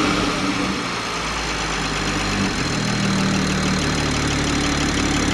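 2020 Toyota Supra engine with a newly fitted Precision 6262 ball-bearing top-mount turbo, idling steadily as it settles after a quick throttle blip.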